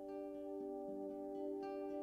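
Instrumental background music: steady held tones with new notes coming in over them.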